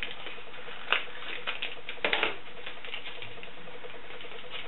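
Small clicks and scrapes of a makeup pencil and its thin cardboard box being handled: a sharp click about a second in and a short cluster of clicks and scraping about two seconds in, with lighter ticks between, over a faint steady hum.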